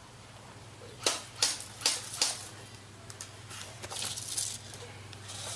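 Airsoft guns firing single shots: four sharp cracks about 0.4 s apart, followed by a looser patter of shots and impacts.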